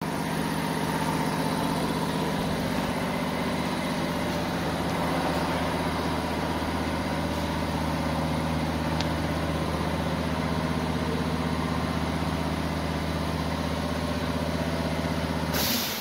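Steady low machine hum of a CNC router installation running, with no cutting heard. Near the end it gives way to a short loud rush of noise and stops abruptly.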